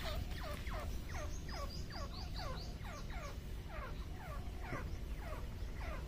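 Grey francolin calling: a long run of sharp notes, each falling steeply in pitch, repeated about three times a second. Short higher chirps sound over the series in the first half.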